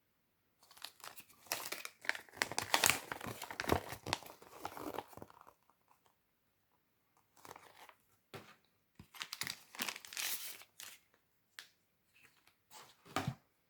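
Packaging being torn open and crinkled by hand, in irregular rustling bursts: a long stretch, a pause of about two seconds, then more tearing and a short final burst near the end.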